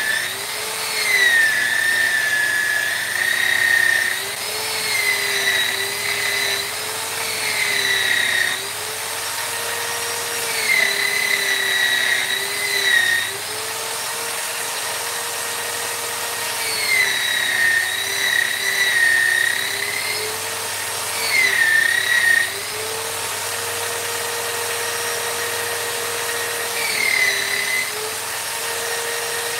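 High-speed electric rotary power tool running continuously, its whine dipping in pitch and recovering again and again as it is pressed into the work and eased off.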